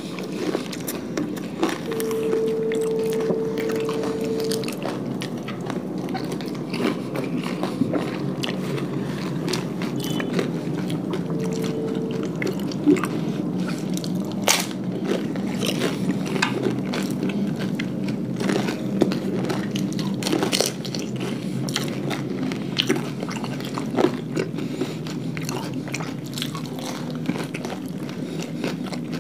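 Close-miked crunching and chewing as crisp pani puri shells and papdi chaat are bitten and eaten, with many sharp crunches scattered throughout. A brief steady hum sounds twice, near the start and about twelve seconds in.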